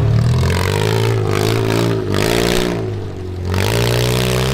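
Demolition derby car engine running loud and revving unevenly, its pitch dipping and rising again a few times.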